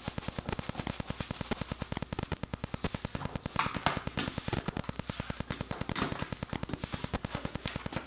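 Rapid, steady mechanical clicking at about a dozen clicks a second, with a few louder ticks.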